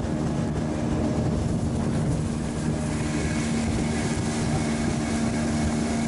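Outboard motor of a small aluminium motorboat running steadily at cruising speed, with the rush of wind and water against the hull, the rushing growing louder about halfway through.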